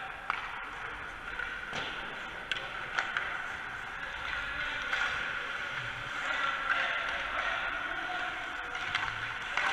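Ice hockey rink during practice: a steady hiss of skates and rink noise, broken by a handful of sharp clacks of sticks hitting pucks, the loudest about three seconds in and near the end.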